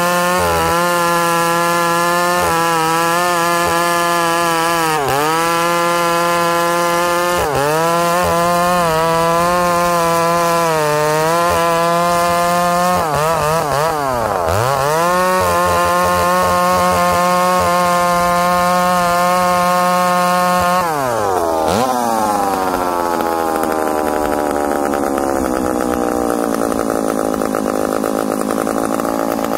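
Ported McCulloch Super Pro 70 two-stroke chainsaw, freshly fitted with an Oregon ignition module, cutting a log at full throttle, its revs dipping briefly a few times under load. About 21 s in the throttle is released and the revs fall away to a steady idle.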